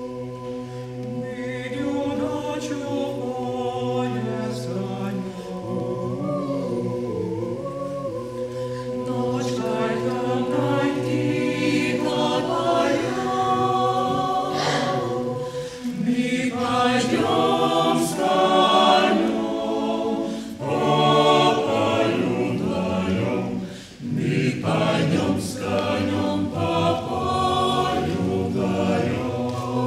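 Mixed choir singing a cappella in several parts. It begins softly on a held chord over a steady low note, then the voices move and grow louder, with a brief break for breath about four-fifths through.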